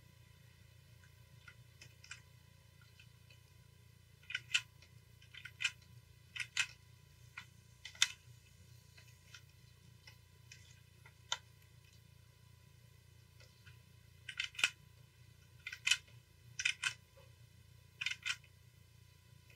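Sharp clicks from computer input at a desk, about a dozen, many in quick pairs, starting about four seconds in. A low steady hum runs underneath.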